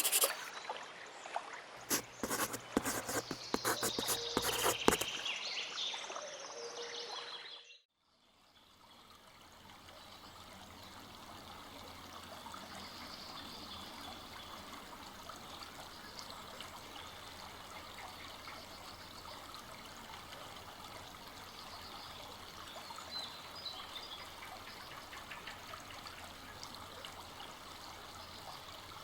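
A few seconds of clicking and scraping sounds cut off just before eight seconds in. Then a full-flowing forest stream fades in and runs steadily.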